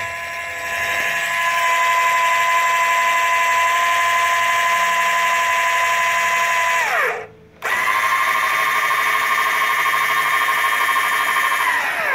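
Hi-Power 3500 electric trailer tongue jack's motor running under load with a steady whine, winding down to a stop about seven seconds in, then starting again half a second later and running until it winds down near the end.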